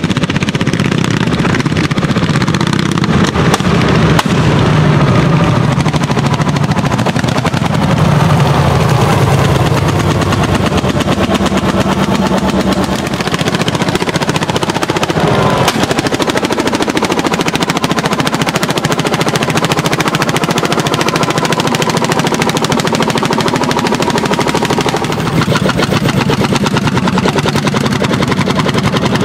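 Landini single-cylinder hot-bulb (testa calda) tractor engine working under load while plowing. Its exhaust is a rapid, steady beat of pops.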